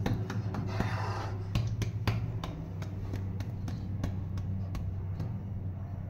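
Sharp, irregular clicks and taps, several a second, over a steady low hum.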